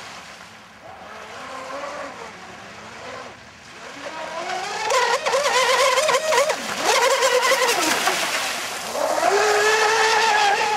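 Electric RC speedboat running flat out on a 6S lithium battery pack: a high motor whine that rises about four seconds in, dips twice and comes back up, over the hiss of spray thrown up by the hull and propeller.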